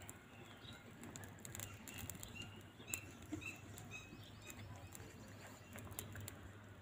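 Faint birds chirping: a run of short, high chirps a second or two in, over a low steady hum and a few light clicks.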